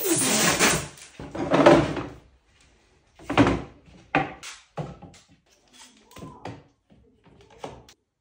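Two bursts of hissing spray over white board strips. Then board pieces are knocked and set down on a wooden workbench, and near the end a bar clamp clicks and rattles as it is fitted to the glued corner post.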